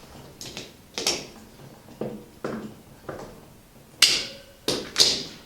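Plastic tubing being pushed into quick-connect fittings and handled: about eight short sharp clicks and taps, the loudest two near the end.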